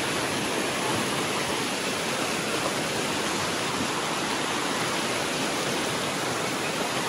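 River water pouring over a low concrete weir, a steady rush of churning white water.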